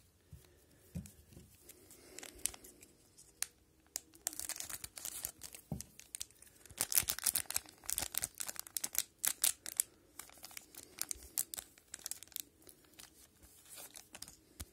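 Wrapper of an Upper Deck MVP hockey card pack being torn open and crinkled by hand. Scattered crackles at first, then dense sharp crackling from about four seconds in, loudest in the middle, thinning out near the end.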